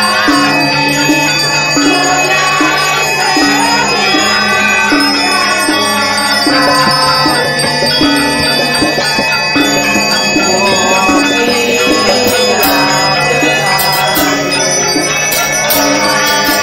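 Balinese gamelan music: bronze metallophones and gongs ringing in a steady, repeating pattern.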